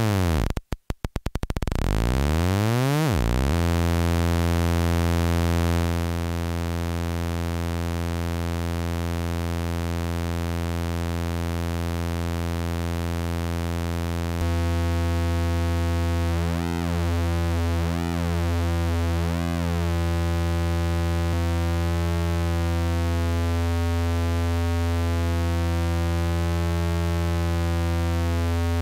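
MFOS Sound Lab Mini-Synth oscillator tone. At first it sweeps up and down in pitch under the LFO, with a brief stutter about a second in, then settles into a steady low, buzzy drone. In the second half its timbre shifts and slowly phases as the LFO modulates VCO2's pulse width.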